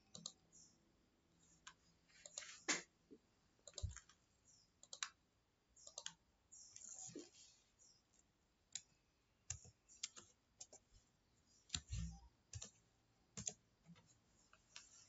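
Faint computer mouse clicks and keyboard key presses: irregular single sharp clicks, with a short scratchy stretch a little before halfway.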